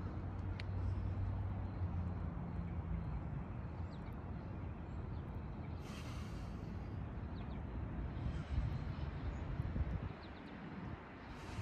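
A person breathing hard, with two forceful exhales about five seconds apart, over steady background noise and a low hum that fades after about three seconds.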